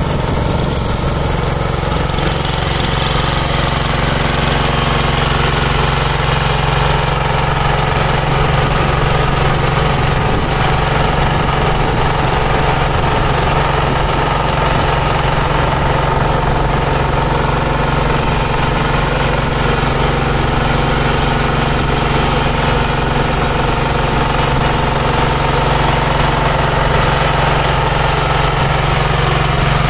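Kirloskar 15 hp power tiller's single-cylinder diesel engine running steadily under load as its rotary tiller churns through dry soil.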